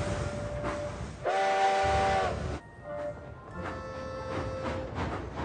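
Three-chime steam whistle blowing one steady chord for about a second and a half, with a hiss of steam, starting about a second in and cutting off sharply.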